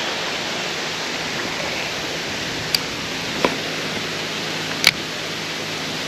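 Steady rush of flowing water, with three short sharp clicks about halfway through.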